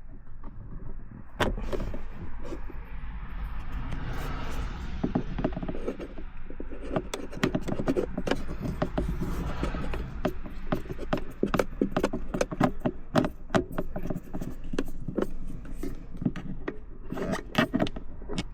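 Irregular clicking, knocking and scraping of a tool and hands working the plastic center console lid and its screws, with a low steady rumble underneath.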